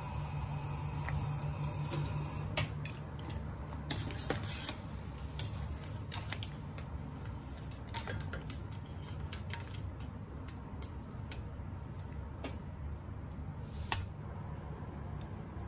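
Freshly boiled thick noodles draining in a metal mesh strainer held over the pot: dripping water and light clicks and taps of the strainer, densest a few seconds in, with one sharp click near the end, over a steady low hum.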